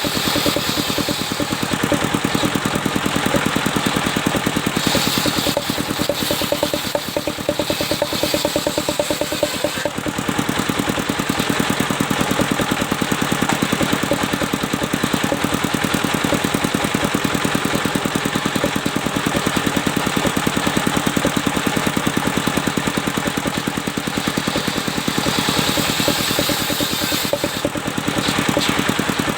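Engine of a circular-saw sawmill running steadily with a rapid, even chugging, with a brighter hiss rising briefly a few seconds in and again near the end.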